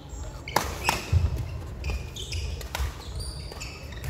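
Badminton play on a wooden sports-hall floor: sharp racket-on-shuttlecock hits, short high shoe squeaks and dull footfalls, echoing in the large hall.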